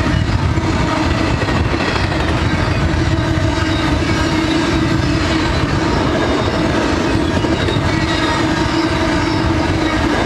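Double-stack container cars of a freight train rolling past, the steel wheels giving a steady, loud rumble and clatter on the rails with a steady whining tone above it.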